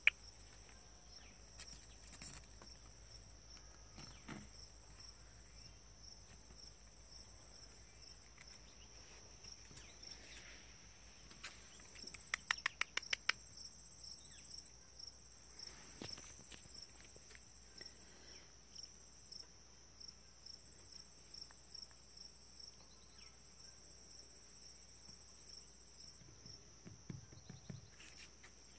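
Faint insect chorus, high-pitched chirping that pulses evenly and steadily. About twelve seconds in, a quick run of about a dozen sharp clicks, with a few scattered taps elsewhere.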